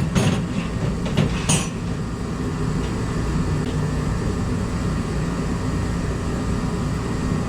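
Steady low mechanical rumble in the background, with a few sharp metallic clicks in the first second and a half as a stuck tie rod end is worked loose by hand with tools.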